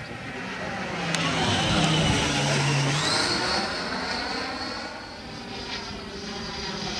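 Electric ducted fan (Schübeler DS-94-DIA HST) of a large RC Cougar jet model whining as the model flies past, loudest about two seconds in, then fading and building again near the end. Its high whine climbs in pitch about three seconds in.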